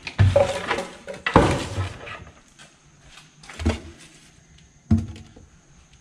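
Cupboard or cabinet doors being handled and knocking shut: four separate thuds, the first two loudest.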